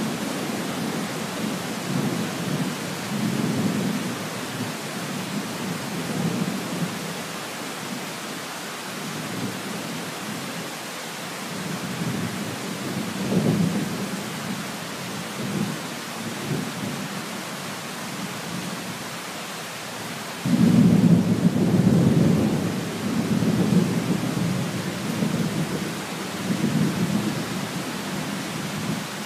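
Heavy tropical rain falling steadily, with a low, pulsing rumble beneath it that comes and goes and grows suddenly louder about two-thirds of the way through.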